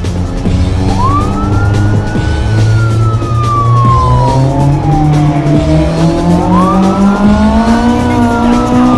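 A car engine accelerates, its pitch climbing steadily over several seconds, while a police siren wails behind it: two long wails, each rising quickly and falling slowly.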